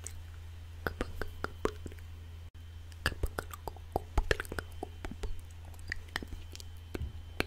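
Inaudible ASMR whispering close to the microphone: soft breathy mouth sounds broken by many short, wet mouth clicks and lip smacks, over a steady low hum.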